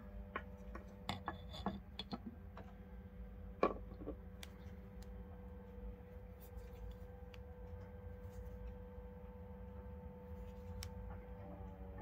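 Sharp clicks and light knocks of metal automatic folding knives being handled and set down on a wooden table, the loudest click about three and a half seconds in, then only a few scattered clicks. A faint steady hum runs underneath.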